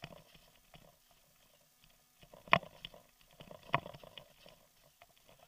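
A bicycle rattling as it rolls over a rutted dirt road, with scattered small clicks and two sharp knocks a little over a second apart, the first about two and a half seconds in, as the bike jolts over bumps.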